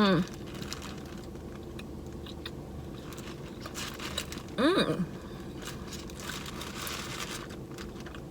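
Close-up mouth sounds of a person eating: soft chewing and crunching with small clicks, and a short hummed vocal sound about halfway through.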